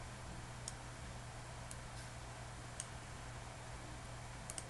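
Faint computer mouse clicks, roughly one a second with two close together near the end, over a steady low hum.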